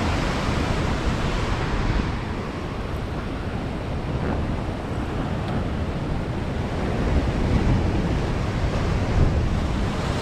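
Ocean surf breaking and churning against the foot of a rocky cliff, a steady rushing wash, with wind buffeting the microphone.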